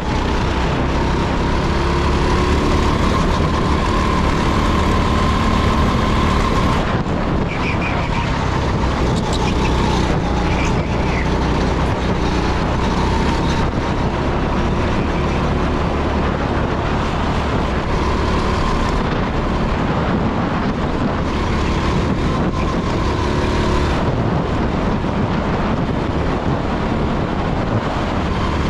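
Rental go-kart engine running at racing speed, heard from onboard the kart, its note rising and falling with the throttle through the corners.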